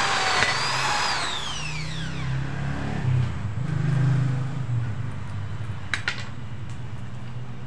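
AEG SB 500 RE 500-watt impact drill finishing a hole in a metal block; the trigger is released about half a second in and the motor winds down with a falling whine over about two seconds. A few sharp metallic clicks near six seconds come from the drill bit being handled in the chuck.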